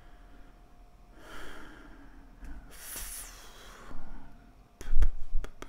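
A man breathing out audibly twice while thinking, then, about five seconds in, a thump followed by a few sharp clicks.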